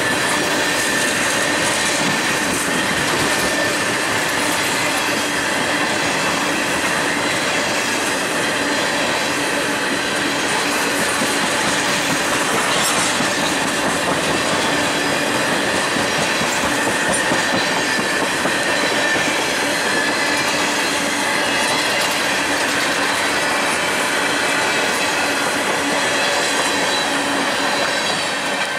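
Loaded tank cars of a freight train rolling past at speed: a steady rumble and clatter of steel wheels on the rail, with a thin, steady high squeal from the wheels.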